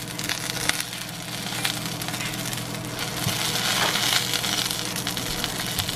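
Blistered shishito peppers sizzling with light crackles in a nonstick frying pan just taken off the heat, over a steady low hum.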